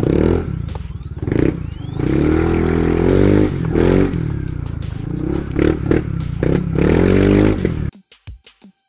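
Yamaha NMAX 155 scooter's single-cylinder four-stroke engine running while riding, its pitch rising and falling with the throttle. The sound cuts off suddenly near the end.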